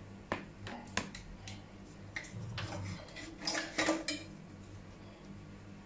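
Kitchen utensils and dishes clinking and clattering. There are single sharp clinks about a third of a second and a second in, then a quick cluster of clatters between three and a half and four seconds in, over a steady low hum.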